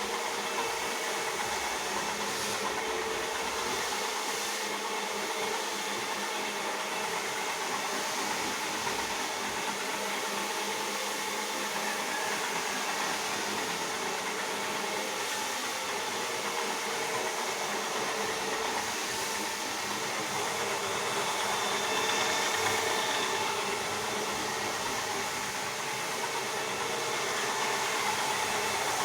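Rotary floor polisher running steadily as its brush scrubs a carpet: an even motor whir with faint steady tones.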